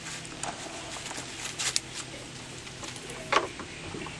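Soft coated wheaten terrier puppy chewing and tearing crisp lettuce leaves: a few short, sharp crunches, a quick cluster about a second and a half in and the loudest a little past three seconds.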